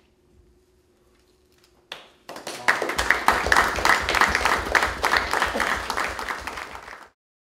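A small audience applauding: a single sharp clap about two seconds in, then many people clapping together, cut off abruptly near the end.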